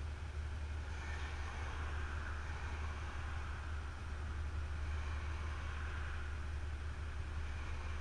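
Motorcycle engine idling steadily at a standstill, a low even hum.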